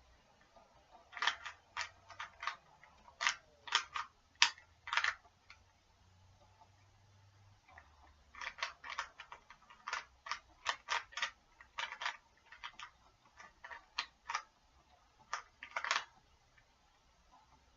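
A Rubik's Cube's plastic layers being turned by hand, a string of sharp clicks and clacks: a first burst of turns, a pause of about two seconds, then a longer run of quick turns.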